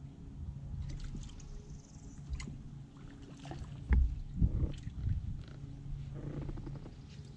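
Knocks and thumps of handling in a small aluminum fishing boat while a hooked fish is played on a jig pole and the landing net is picked up. The loudest thumps come about four seconds in, over a steady low hum.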